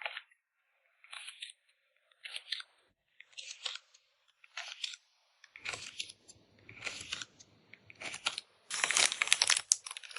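Photocard packing materials handled close up: a series of short crinkling rustles about once a second, becoming denser and louder near the end.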